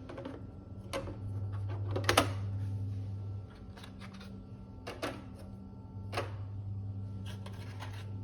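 Scattered light clicks and knocks of hard plastic parts being handled, the loudest a quick double click about two seconds in, over a low electrical hum that stops for a few seconds in the middle.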